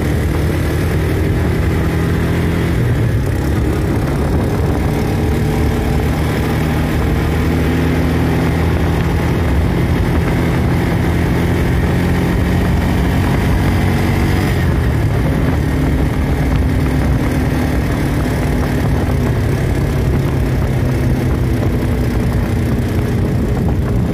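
ATV engine running steadily at cruising speed on the road, under a constant rush of wind and road noise; its pitch shifts slightly about halfway through.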